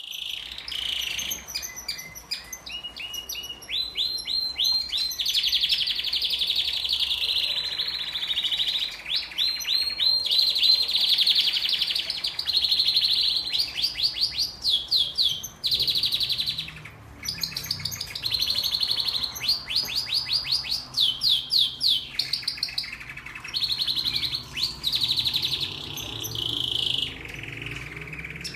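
Male domestic canary singing its courtship song, the kind used to bring hens into breeding condition. Fast trills and rolls run phrase after phrase, with short pauses about 16 and 27 seconds in.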